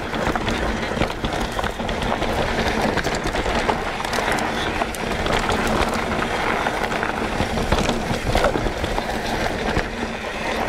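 Mountain bike rolling downhill on a rough dirt-and-gravel forest trail: a continuous crunch of knobby tyres over stones, with many small rattles and knocks from the bike.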